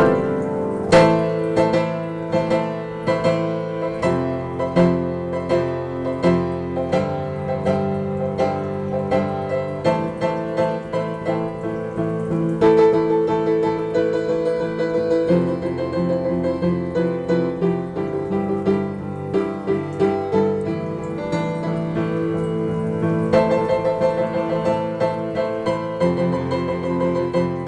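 Solo upright piano being played: a continuous passage of chords and melody notes struck in a steady flow.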